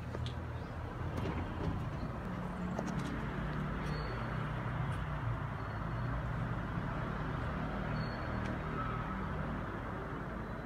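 Steady low motor-vehicle rumble, with two short high beeps about four seconds apart.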